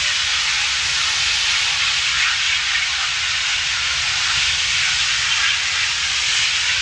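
Large fire at an LP gas plant burning: a loud, steady hiss with a low rumble beneath.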